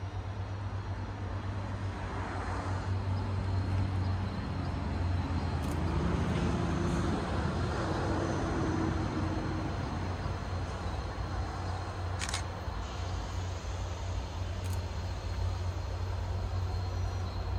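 Diesel locomotive of a distant MBTA commuter train approaching: a steady low rumble that slowly grows louder, with a faint drawn-out tone for a few seconds in the middle.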